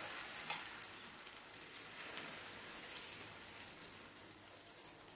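Semolina and ghee sizzling in a hot nonstick pan as wet banana paste is poured onto it; the hiss is strongest at first and dies down over the next few seconds, with a few light taps.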